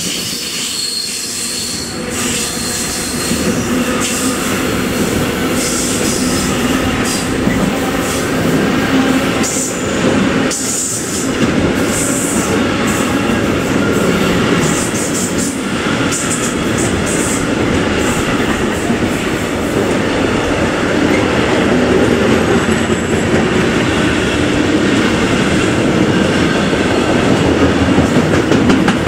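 Long freight train of container and tank-container flat wagons rolling past close by, its steel wheels clattering on the rails in a steady, loud wash of noise. A thin high wheel squeal sounds in the first few seconds, with brief high-pitched flashes of squeal and screech scattered through the passing.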